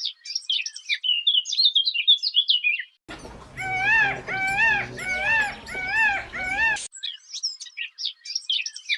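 Small songbirds chirping in a rapid, busy chorus. About three seconds in, this cuts abruptly to another animal giving five repeated arched calls. About a second before the end it cuts back to the birds chirping.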